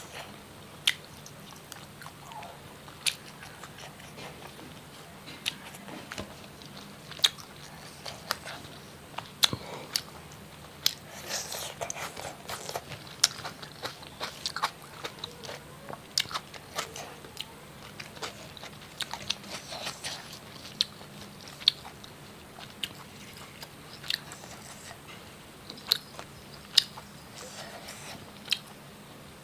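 A person eating fried fish: crisp, irregular crunching bites and chewing, a sharp crunch about every second.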